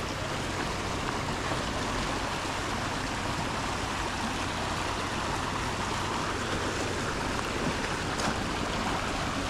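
Steady rush of creek water running through an icy canyon below waterfalls.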